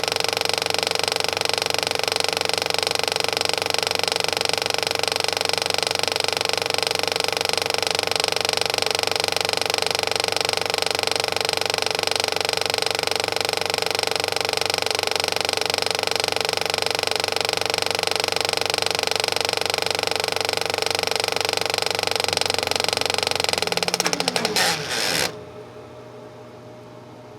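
Film projector running steadily. Near the end it winds down, its pitch falling, then cuts out, leaving only a faint steady hum.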